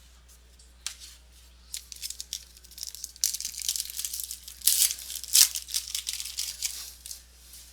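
A trading card pack wrapper being torn open and crinkled, an irregular run of crackling and rustling that is loudest in the middle.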